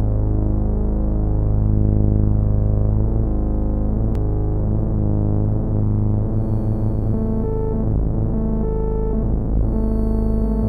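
Synthesizer music: sustained low drone chords with a light pulsing in the second half and a single click about four seconds in.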